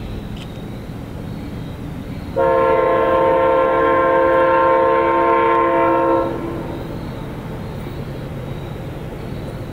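Horn of Amtrak 79's lead locomotive, GE P42DC AMTK 156, sounding one long steady blast of about four seconds as the train approaches, over the low rumble of the train.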